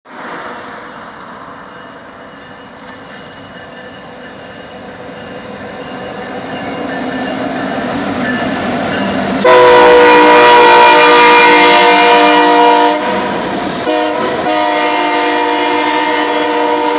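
Norfolk Southern diesel freight locomotive approaching with a rumble that grows steadily louder, then sounding its air horn as a loud chord of several notes in two long blasts about halfway through, the second still going at the end as the boxcars roll past.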